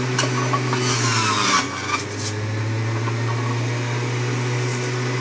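Electric centrifugal juicer running with a steady motor hum. About a second in, a piece of fruit pressed down the feed chute is ground up with a burst of noise, and the motor drops in pitch under the load before picking up again.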